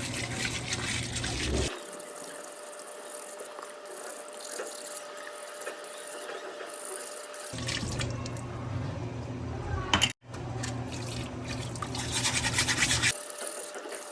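Tap water running over espresso machine group-head parts while they are scrubbed with a brush. The running water is louder in the first couple of seconds and again from about halfway through, with a brief cut-out near the end and heavier scrubbing just before it quietens.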